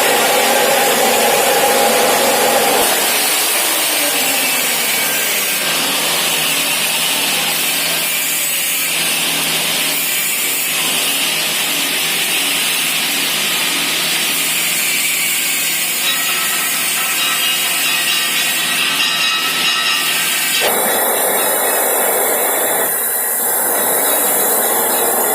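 Steady, loud noise of metalworking in a welding workshop, changing abruptly about three seconds in and again near the end.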